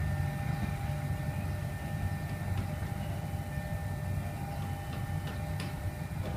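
Steady low rumble of motor vehicle engines idling and running near a railway level crossing, with faint steady tones above it.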